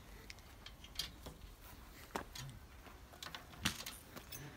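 A few separate faint metallic clicks and clinks as the chain and metal harness fittings on a horse cart's drawbar are handled.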